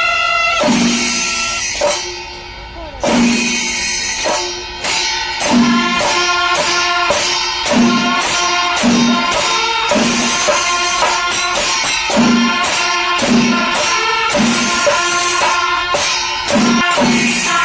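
Music with jingling percussion and pitched notes over a steady heavy beat, about one beat a second.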